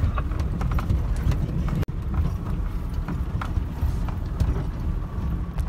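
Low rumble of a pickup truck's engine and tyres heard from inside the cabin, with irregular knocks and rattles as the truck bumps over a rocky, muddy dirt track.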